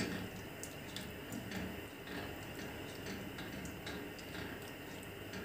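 Wooden spatula stirring chicken breast pieces in a frying pan: faint, irregular light clicks and ticks.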